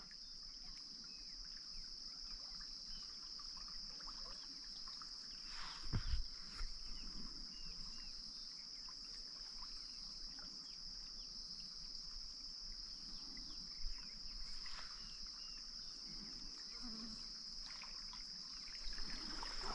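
Steady high-pitched insect chorus, with a brief rustle and a soft knock about six seconds in.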